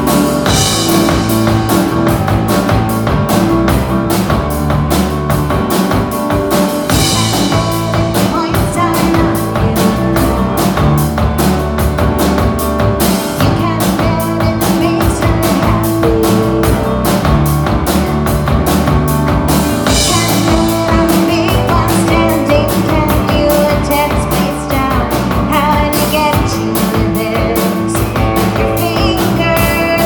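Rock band playing live on stage: a drum kit keeping a steady beat under electric bass guitar, loud and continuous.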